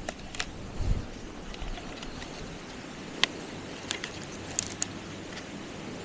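A few sharp, short clicks and a dull thump about a second in, like small gear being handled, over a steady outdoor hiss.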